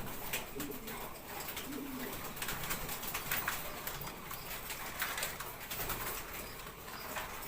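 Domestic pigeons cooing in a loft, with many scattered light clicks and taps.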